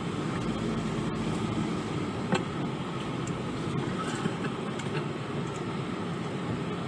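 Camper van running at low speed or idling, heard from inside the cabin as a steady engine and road noise, with a single sharp click about two seconds in.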